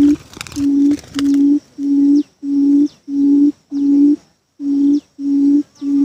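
Low, pure hooting note repeated just under twice a second, with one short pause about four seconds in: the booming call of a buttonquail used as a lure at a snare trap. Faint short, high, falling chirps from small birds come now and then.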